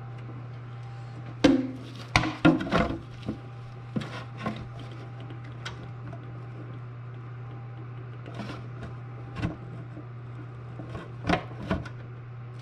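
Hand work on car parts and tools: a quick run of knocks and clatters about a second and a half in, scattered taps, then another cluster of knocks near the end, over a steady low hum.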